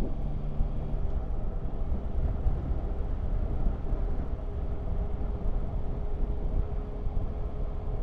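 Yamaha Tracer 9 GT motorcycle under way, its three-cylinder engine at steady speed under heavy wind rumble on the camera microphone, with road noise. A steady engine tone holds from about four seconds in.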